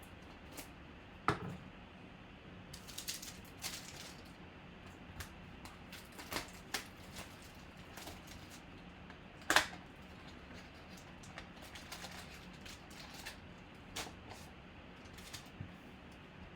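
Trading cards being handled on a table: scattered light clicks, taps and short sliding rustles, with two sharper taps, one about a second in and one about halfway through.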